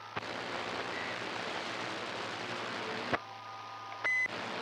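CB radio receiver on channel 28 putting out a steady hiss of static for about three seconds, cut off by a click, then a short high beep near the end, typical of a station's roger beep.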